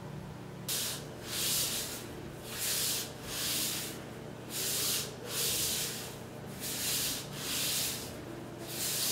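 Rubbing swishes repeated about once a second, sometimes in pairs, as fabric track pants and sneakers brush against a yoga mat with each leg lift and kick. A faint steady hum lies underneath.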